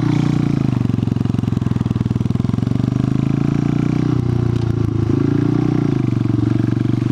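Buell Blast's single-cylinder engine running steadily as the motorcycle is ridden along, its note wavering gently, with a brief change in pitch about four seconds in.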